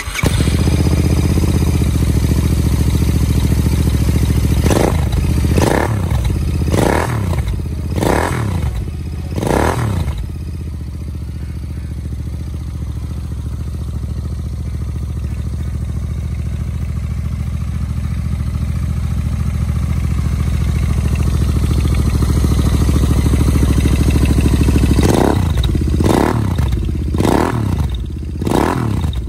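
Royal Enfield Interceptor 650's parallel-twin engine idling through an aftermarket Lextek silencer, revved in five quick blips about five seconds in and four more near the end.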